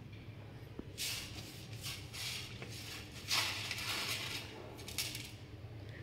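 Hands handling a stainless-steel electric kettle as noodles and masala are put in: several short scratchy, rustling noises, the longest a little over three seconds in, over a steady low hum.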